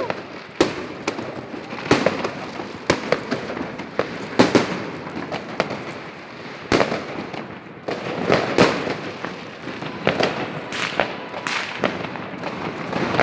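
New Year's fireworks going off: a continuous scatter of bangs and crackling pops, some sharp and close, over a steady rumble of more distant salutes.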